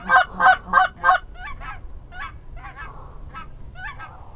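Goose honking: a loud, fast, even run of honks, about three a second. After about a second it gives way to fainter, spaced-out single honks.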